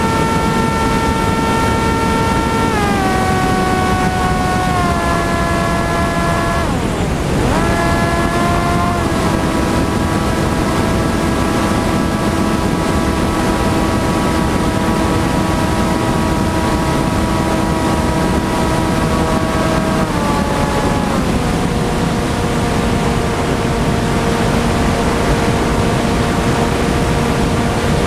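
Electric motor and propeller of a TBS Caipirinha flying wing, heard from onboard as a whine over heavy wind rush. The whine steps down in pitch about three and five seconds in, dips sharply and comes back around seven seconds, and drops again about twenty seconds in as the throttle is changed.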